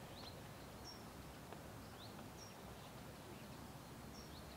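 Faint outdoor ambience: a bird repeating short, high chirps, some rising and some level, about once a second over a soft steady hiss.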